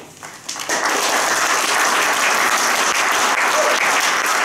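Audience applauding, starting softly and swelling into full, steady clapping about a second in.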